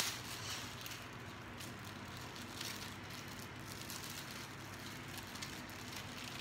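Faint rustling and crinkling of plastic packaging as small items are handled and unwrapped, over a steady low hum.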